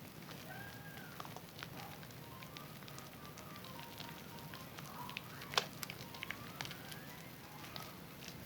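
Zest bar soap being lathered: soft, wet crackling with scattered sharp clicks, the loudest about halfway through.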